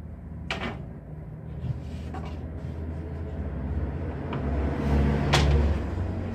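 A low steady rumble with a hum that grows louder about four and a half seconds in, and a few sharp knocks. The loudest knock comes about five seconds in.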